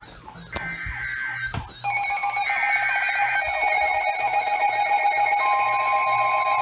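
Several emergency weather alert receivers sounding their alert tones at once, signalling an incoming warning. After a couple of clicks and a warbling high tone, a stack of steady electronic tones and beeps starts about two seconds in and holds.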